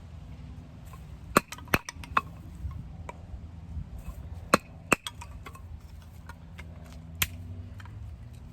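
Sticks being struck and split with a fixed-blade knife: about six sharp wooden knocks at irregular spacing, heard over a faint low steady hum.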